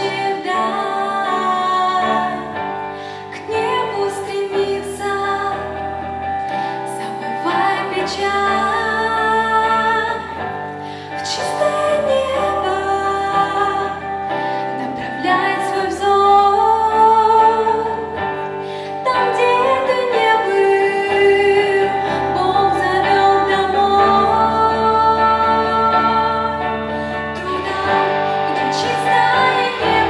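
A woman singing a song into a microphone, accompanied by electric guitars, with sustained low notes underneath.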